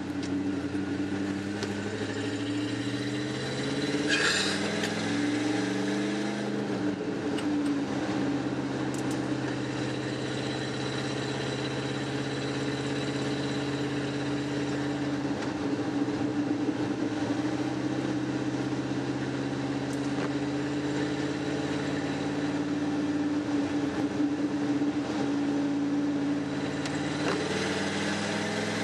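1994 Ford F-150's 5.0 L V8 engine heard from inside the cab, climbing in pitch as the truck pulls away, dropping back about six seconds in, then running steadily at a cruise.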